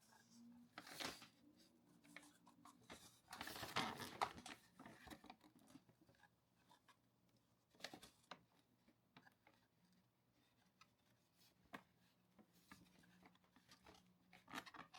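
Mostly near silence, broken by faint rustling and scraping, with the most rustling about three to four and a half seconds in and a few short taps after: hands handling potting soil and its packaging in a plastic container.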